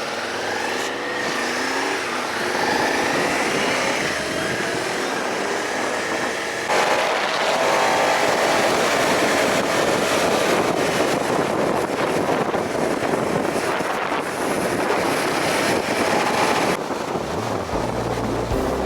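Motorcycle engine running on the move, its pitch rising and falling as the revs change, then overlaid by a heavy rush of wind and road noise from about seven seconds in. Music starts near the end.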